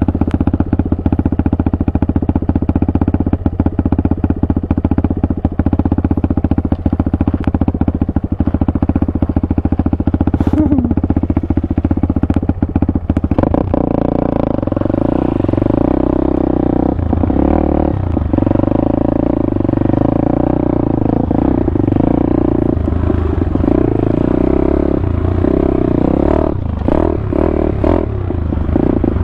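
Pitster Pro 190 pit bike's single-cylinder four-stroke engine running under throttle while riding off-road. About halfway through, the sound changes from a rapid, choppy firing beat to a smoother engine note that rises and falls with the throttle.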